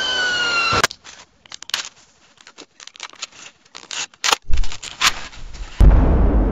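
A high squealing tone with several pitches, gliding slowly downward, cuts off abruptly just under a second in. A run of sparse, irregular small clicks and crackles follows. A deep rumble comes in about four and a half seconds in and swells into a loud, steady rumble near the end.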